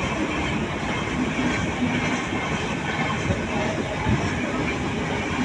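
Moving train running on the rails, a steady rumble and rattle of wheels and cars.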